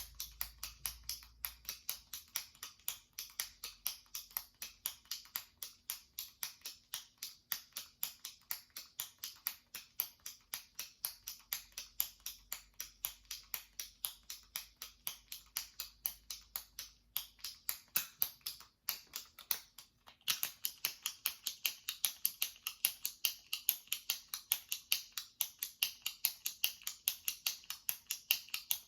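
Jumbo retractable pen clicked over and over by pressing its top button: a steady run of sharp plastic clicks, about four a second, with a couple of brief breaks and louder clicks for the last third.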